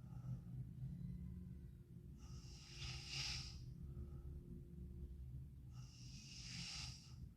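A sleeping girl snoring and breathing heavily: two long breathy breaths, about three and a half seconds apart, over a steady low hum.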